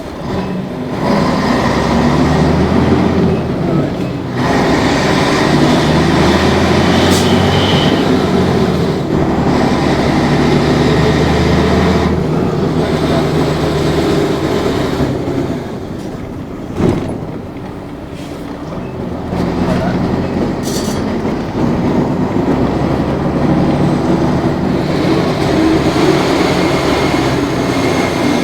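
Mercedes-Benz OM 447 LA turbocharged inline-six diesel in an O-400 bus, heard from inside the bus as it pulls, the revs rising and falling through the gear changes. The engine eases off briefly several times and longest about two-thirds of the way through, where there is a single knock. A faint high turbo whistle rides over it.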